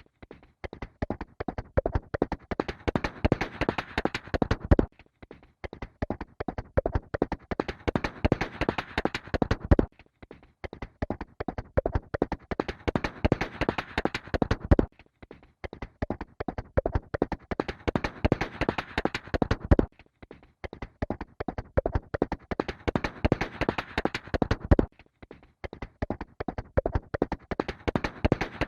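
Horse galloping: fast, continuous hoofbeats that repeat as a loop about every five seconds, with a brief break between each pass.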